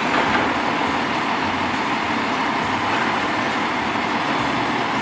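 Automated side-loading garbage truck running with a steady, even noise while its mechanical arm lifts a curbside cart.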